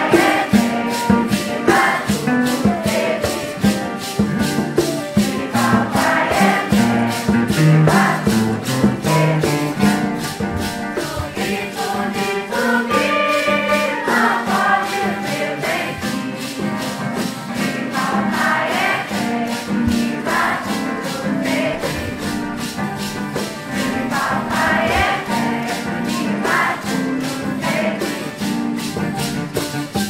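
Music: several voices singing a melody together over a steady maraca rhythm.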